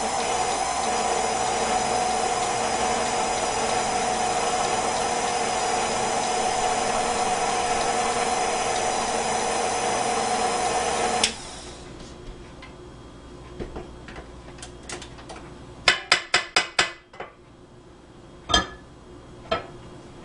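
Electric stand mixer running steadily with an even whine, beating a thick cream cheese and butter garlic spread, then switching off abruptly about eleven seconds in. After a pause comes a quick run of about six sharp metal knocks, then a few single knocks as the beater and metal mixing bowl are handled.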